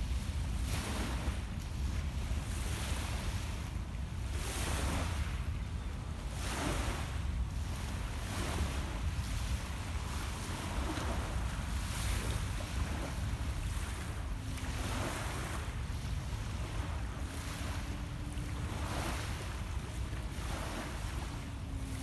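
Small lake waves lapping onto a pebble shore, a soft wash every second or two, over a steady low rumble of wind on the microphone.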